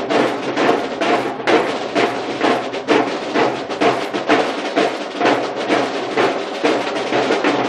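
Marching snare drum line playing a fast, even rhythm together, crisp drum strokes following one another several times a second.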